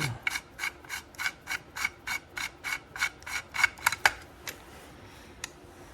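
A Sargent mortise cylinder being turned by hand in the threaded hole of a mortise lock body: a steady run of short metal-on-metal scrapes, about three or four a second, that stops after about four seconds.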